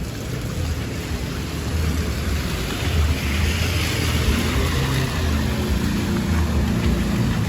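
Motor vehicle running through floodwater: a steady low rumble with a rush of water hiss swelling about three seconds in, and an engine note coming up near the end.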